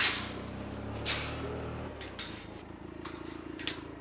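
A side-by-side UTV engine idling, fading out about two seconds in, with a few sharp clanks.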